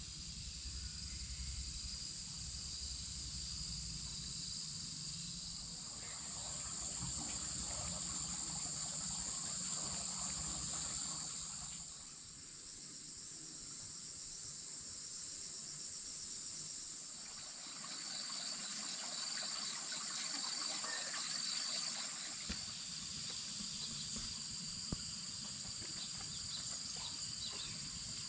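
Steady chorus of insects, a continuous high trilling, with a pulsed chirping joining in for a few seconds past the middle.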